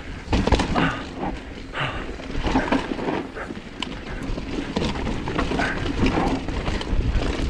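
Full-suspension mountain bike descending a rocky dirt trail at speed: tyres crunching over dirt and stones, with frequent knocks and rattles from the bike over the rough ground and a low rumble of wind on the microphone.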